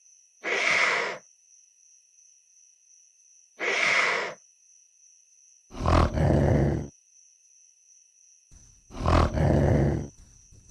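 Baryonyx dinosaur creature sound effects: two short, bright roaring calls, then two longer, deeper roars, each separated by a pause.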